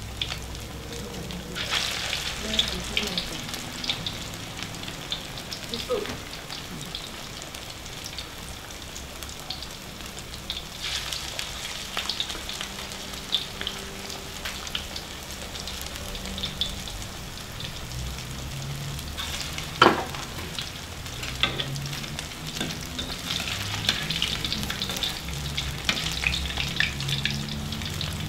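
Thai fish cakes deep-frying in hot oil in a wok, the oil sizzling and crackling with many small pops. There is one sharp knock about two-thirds of the way through.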